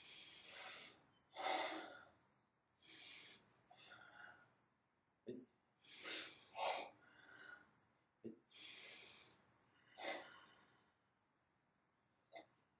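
Karate practitioners' forceful breathing while performing a Goju-ryu kata: about eight hissing breaths of under a second each, with a few short knocks between them.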